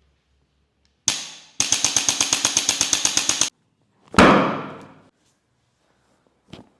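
A run of sharp impacts: one hit, then a rapid even train of about twenty clicking knocks at roughly ten a second for about two seconds, then one loud, heavier impact that rings out for most of a second, and a small click near the end.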